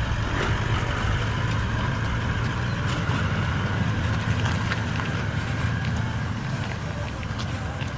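Four-wheel drive driving over a rough dirt track: a steady rumble of engine and tyres with scattered short rattles and knocks.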